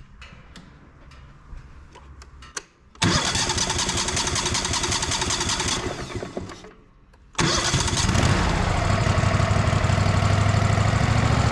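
Sawmill's gasoline engine being started after a pinched fuel line was freed. A first attempt about three seconds in lasts about three seconds and fades out. A second attempt a little past seven seconds catches, and the engine keeps running steadily.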